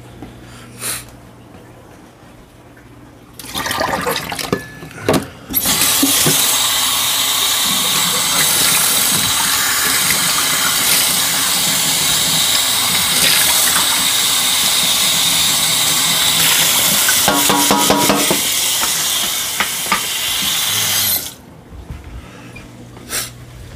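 Water from a kitchen tap running hard into a stainless steel sink for about fifteen seconds, then shut off suddenly. A few knocks of handling come just before it starts.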